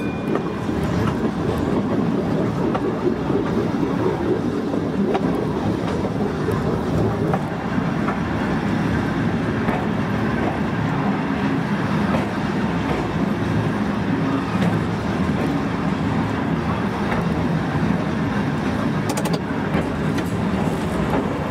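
Volk's Electric Railway car running along its narrow-gauge track: a steady rumble of wheels on rail, with a low steady hum coming in about halfway through.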